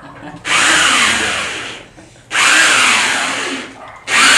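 A power tool run in three short bursts, each starting and stopping abruptly and lasting about a second and a half, the last still going at the end.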